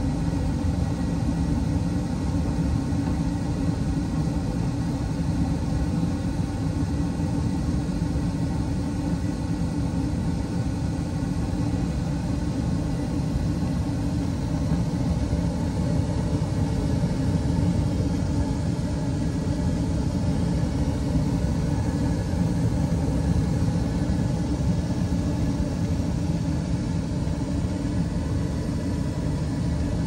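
Carrier 80% gas furnace running steadily with all five burners lit and its draft inducer fan motor running, a steady low rumble.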